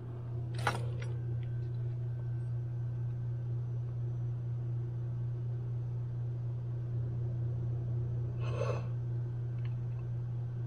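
A steady low hum throughout, with one sharp click a little under a second in and a short clatter about eight and a half seconds in, as parts of a disassembled KitchenAid stand mixer are handled.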